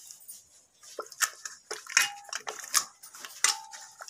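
Hand masher working boiled bottle gourd in a metal pressure cooker: about seven wet squelching strokes and sharp clanks against the pot, starting about a second in. Two of the strikes leave a short metallic ring.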